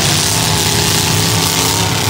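V8 engines of several demolition derby cars running and revving loudly together, their pitch rising and falling slightly.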